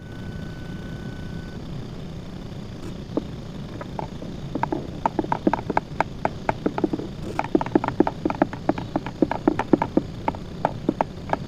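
Small lawn mower engine running steadily while a large screwdriver taps lightly and repeatedly on its carburetor float bowl, a few single taps and then rapid runs of several taps a second. The tapping is meant to free a sticking float and settle a surging idle.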